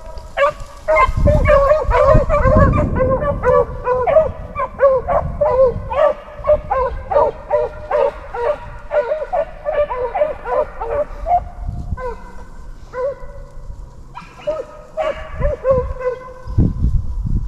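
A pack of beagles baying on a rabbit's trail, many voices overlapping, thinning to a few scattered bays after about twelve seconds.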